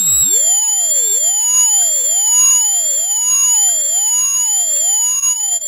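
Homemade ultrasonic dog-bark deterrent, an ultrasonic generator driving a large tweeter, running on setting one and plainly audible: a loud steady high whistle with a lower tone warbling up and down about once a second.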